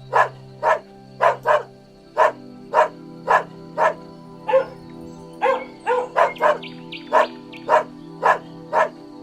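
A dog barking over and over in short, sharp barks, about two a second, with steady background music underneath.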